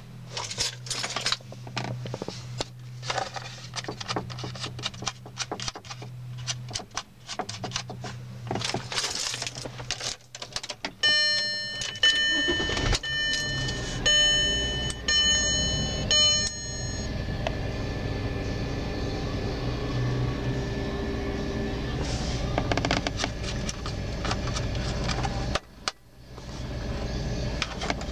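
Keys jangling with many sharp clicks for about ten seconds, then a repeating electronic warning chime from the 2003 VW Passat's dashboard sounding for about five seconds, then a steady low hum.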